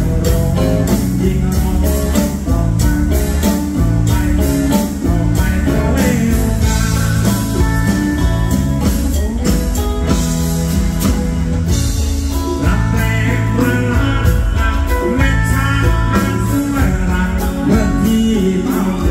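Live band playing loud: drums, bass and guitars, with a male singer singing into the microphone.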